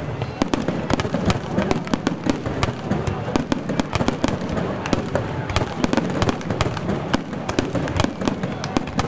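Aerial fireworks display: many shells bursting at once, a dense, unbroken run of bangs and crackles, several a second.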